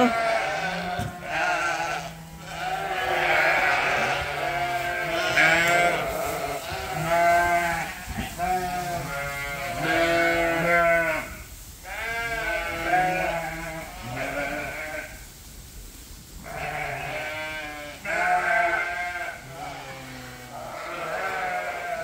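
A flock of sheep bleating, many overlapping calls at different pitches, almost without a break, with a short lull about two-thirds of the way through.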